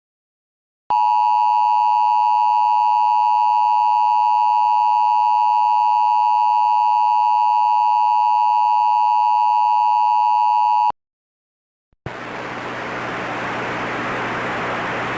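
Emergency Alert System attention signal: a steady electronic alert tone held for about ten seconds, starting about a second in and cutting off abruptly. After a second of silence, a steady hiss of static with a low hum begins near the end.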